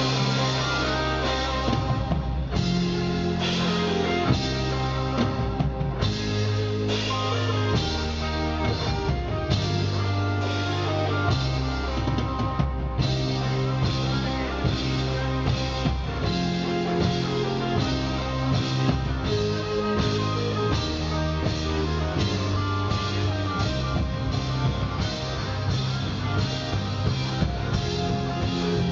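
Rock band playing live, with drum kit and guitars over a steady beat.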